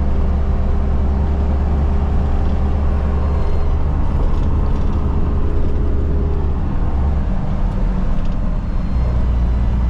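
Truck running on the road, heard from inside the cab: a steady engine drone and road noise, heavy in the low end. A faint steady whine runs along with it and fades about two-thirds of the way through.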